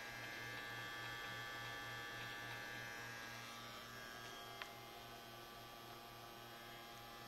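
Faint, steady electrical hum with an even low pulse, and one brief faint click about four and a half seconds in.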